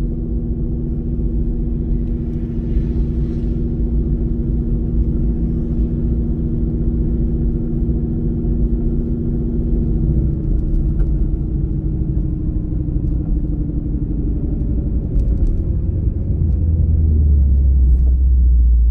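Supercharged Coyote V8 of a Ford Mustang running steadily at low speed. About ten seconds in its note drops and changes, and near the end a deeper, louder rumble takes over.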